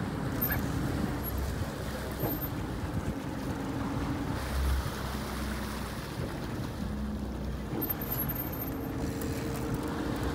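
Steady running of the fishing boat's engine under wind buffeting the microphone, with water washing along the hull.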